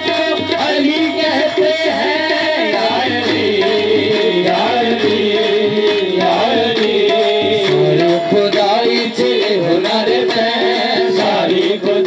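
Qawwali music: a sung melody with held, wavering notes over tabla drumming.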